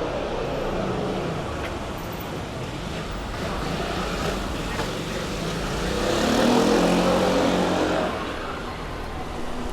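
A car passing close by on the street, its engine and tyres swelling to their loudest about six to eight seconds in, over steady street noise.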